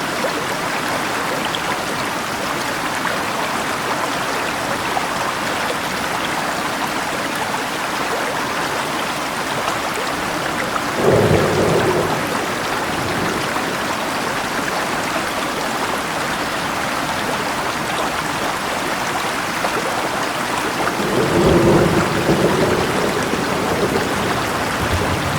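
Steady rainfall over running water, with two rolls of thunder: a short rumble about eleven seconds in and a longer one near the end.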